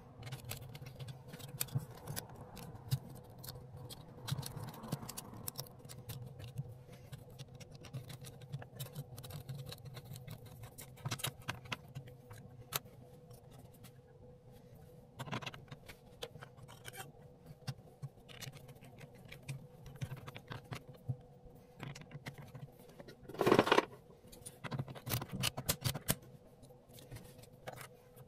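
Hands-on plumbing work on a drain pipe: scattered clicks, taps and scrapes, with a louder scrape about 23 seconds in, over a faint steady hum.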